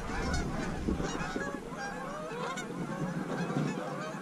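A flock of geese honking, many overlapping calls at once.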